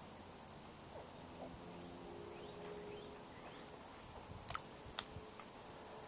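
Faint short calls of juvenile American alligators among floating water plants, with two sharp clicks about four and a half and five seconds in.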